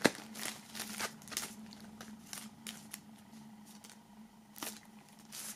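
Plastic shrink-wrap film being peeled off a cardboard CD sleeve by hand: scattered light crinkles and clicks, the sharpest right at the start.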